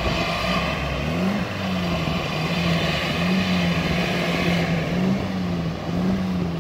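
UAZ off-roader's engine revving up and down in surges as it pushes through deep mud ruts.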